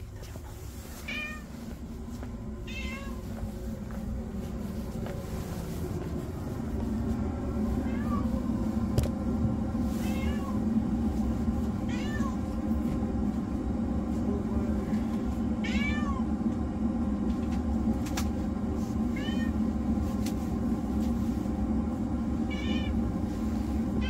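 Ginger tabby cat meowing repeatedly: about nine short meows, a few seconds apart. A steady low hum runs underneath and grows louder about seven seconds in.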